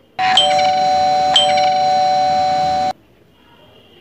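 Electric doorbell ringing while its wall switch is held down, a steady tone with two sharp accents that lasts nearly three seconds and then cuts off suddenly.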